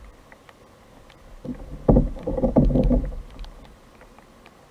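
Handling noise on a fishing kayak as a small fish is brought aboard: a burst of knocking and rustling that starts about a second and a half in and lasts about a second and a half.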